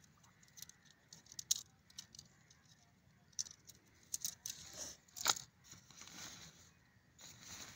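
Tent being taken down: scattered clicks and rattles as a tent pole is pulled apart and folded, the loudest about one and a half and five seconds in. Near the end, a rustle of nylon tent fabric being gathered up.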